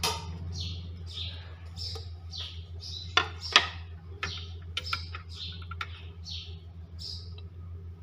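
A small bird chirping over and over, short falling chirps about twice a second, with a few sharp clicks around three to four seconds in and a steady low electrical hum underneath.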